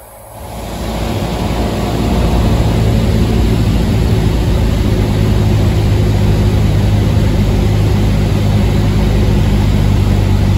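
Cessna's single-engine piston engine and propeller, heard inside the cockpit, throttled up over the first couple of seconds to full takeoff power and then running steady and loud.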